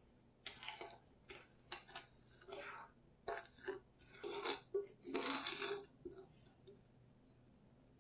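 Wooden spoon stirring agar powder and sugar into water in a small saucepan, the spoon scraping and swishing against the pan in a quick run of strokes that stops about six seconds in.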